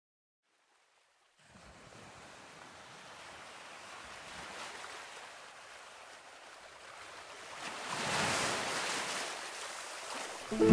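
Soft rush of ocean surf that fades in after a moment of silence, swells to its loudest about eight seconds in, then eases back. Acoustic guitar music starts at the very end.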